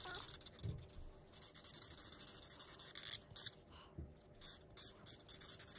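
Felt-tip marker scribbling on paper: quick back-and-forth strokes making a scratchy rasp in bursts, with a short pause a little after three seconds and a soft knock at about four seconds.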